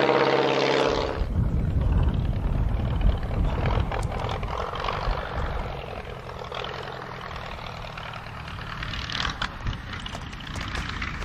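Piston-engined propeller aircraft running: a steady droning engine note that breaks off about a second in, giving way to a lower, rougher engine rumble.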